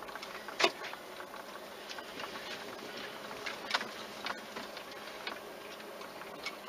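Car rolling slowly along a gravel drive, heard from inside the cabin: a low steady running sound with a few sharp clicks, the loudest about half a second in.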